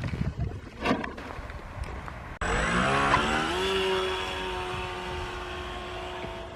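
A few knocks and bumps, then, after an abrupt cut, an RC plane's electric motor and propeller whine. The whine rises in pitch over about a second and then holds nearly steady.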